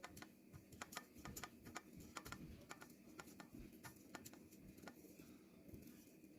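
Faint, irregular light clicks and taps, a dozen or so spread unevenly, over a low background hum.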